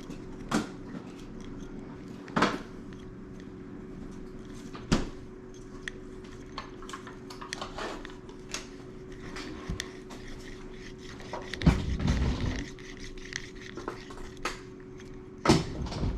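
A bolt being worked into a freshly drilled hole with a hex wrench to cut its own threads: scattered metallic clicks and knocks as the tool is turned and reset, with a louder stretch of scraping and knocking about twelve seconds in. A steady hum runs underneath.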